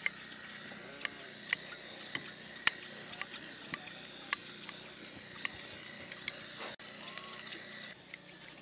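Hand blade shears snipping through a sheep's fleece, the steel blades clicking shut about twice a second in an uneven rhythm.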